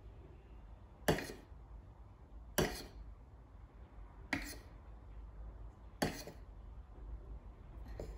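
Four light, sharp knocks against a small metal saucepan, about one every second and a half, as a cake pop is dipped and turned in melted white chocolate.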